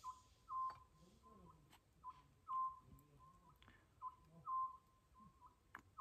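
Oriental scops owl calling its 'so-jjeok' call: a brief whistled note followed by a longer, slightly falling one, repeated about every two seconds.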